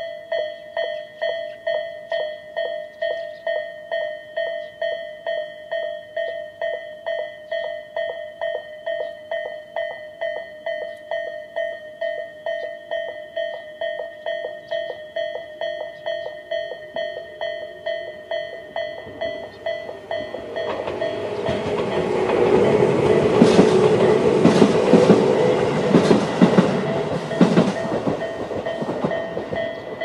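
Japanese level-crossing warning bell (Tobu "sound A") ringing steadily at about two strikes a second. About two-thirds of the way through, a Tobu 800 series electric train passes, its wheels clattering rhythmically over the rail joints and loudest before fading near the end.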